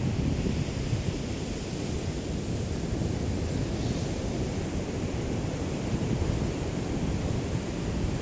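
Small waves of a calm sea lapping on the shore, a steady wash with no single breaker standing out, and a fluttering low rumble of breeze on the microphone.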